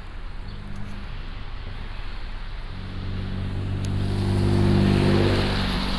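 A motor vehicle driving past close by: a low engine hum and tyre noise swell, loudest about five seconds in, then ease off.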